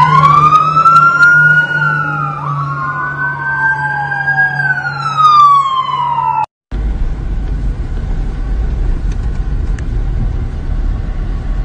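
Fire engine siren wailing, two tones slowly sweeping up and down and crossing each other, over a steady low engine drone. About two-thirds of the way through it cuts off abruptly. Steady car engine and road rumble follow, heard from inside a moving car.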